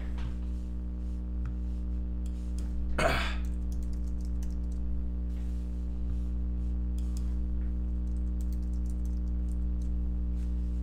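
Computer keyboard typing with scattered key clicks, over a steady low hum. One louder, brief rustle about three seconds in.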